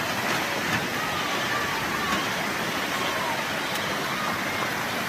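Steady rush of storm water from heavy tropical-storm rain and flooding, with faint voices in the background.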